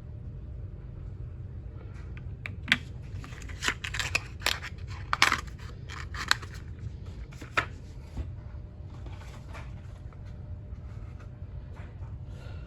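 Cardboard ammunition boxes being handled: a run of sharp, irregular clicks and rustles from about two to eight seconds in, fading to a few faint ones, over a low steady hum.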